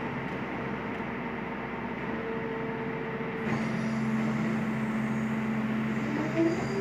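Rear-loader garbage compactor truck's engine running steadily; about halfway it gets louder and its tone changes. Near the end a short rising whine with a knock as the bin lifter takes a wheelie bin.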